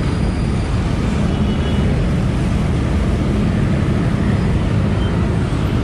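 Motorcycle riding in city traffic: a steady low rumble of engine and rushing air.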